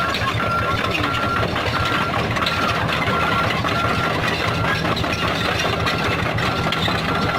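Komatsu PC45 mini excavator's diesel engine running steadily, with a high-pitched beeping alarm repeating about three times every two seconds.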